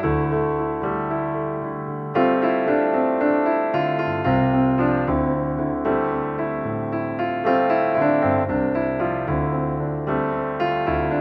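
Background piano music, a melody of steady sustained notes.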